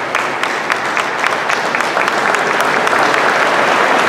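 An audience applauding: separate claps stand out at first, then the applause grows denser and a little louder about halfway through.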